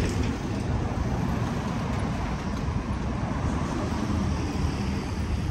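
City street traffic noise: a steady rumble of passing road vehicles.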